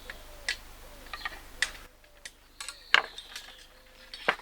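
Irregular sharp clicks and taps of small hard fittings and screws being handled and fitted together, the loudest about three seconds in.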